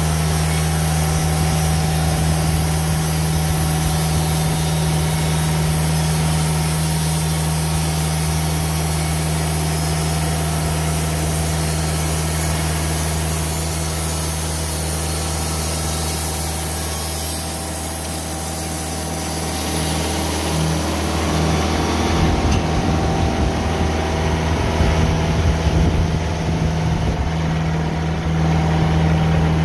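Band sawmill running, its engine note steady while the blade cuts through a cedar log with a dense hiss. About two-thirds of the way in the cutting hiss drops away, and the engine sound carries on with an uneven, wavering level.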